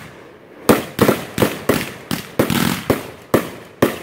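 Consumer aerial fireworks bursting overhead: after a brief lull, a quick irregular string of about nine sharp bangs.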